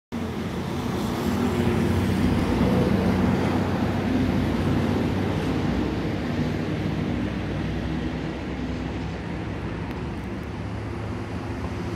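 Jet airliner's engines on approach: a steady rumble with low tones. It is loudest a few seconds in and slowly fades as the aircraft moves away.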